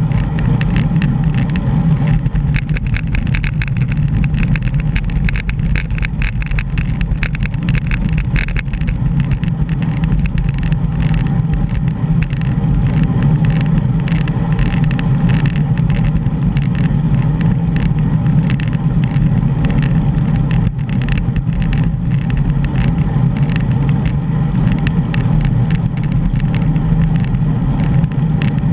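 Steady wind and road rumble on a GoPro while cycling, with a constant run of small clicks and rattles.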